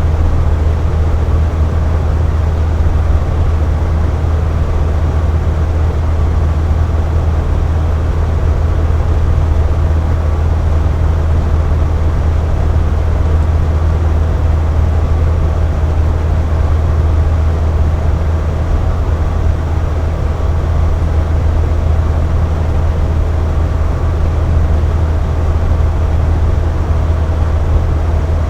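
Box fan running steadily, a low motor hum under an even rush of air, with a faint steady whine above it.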